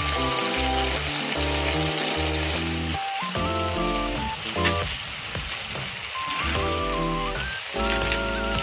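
Food frying and sizzling in a pan, a steady crackling hiss under background music that moves in stepped chords.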